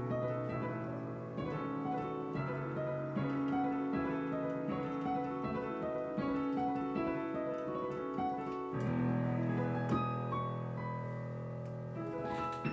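Digital piano played with both hands: a quick stream of notes over held bass notes, with a new deep bass note struck about nine seconds in and another strike near the end as the sound begins to die away.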